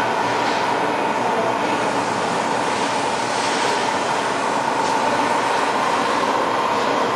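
Steady machine running noise with a constant mid-pitched hum, and a faint brief hiss about five seconds in.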